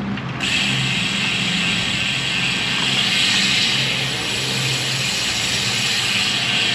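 Steady wind and road noise from riding a road bicycle, a hiss that comes up about half a second in and holds, over a low hum.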